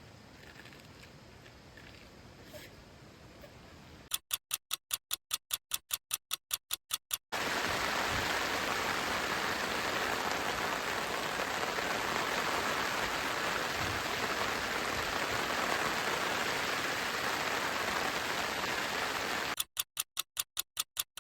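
A loud, even ticking pulse, about five or six beats a second, starts abruptly about four seconds in and stops after about three seconds. A steady rushing noise then cuts in and holds level until the ticking pulse returns near the end.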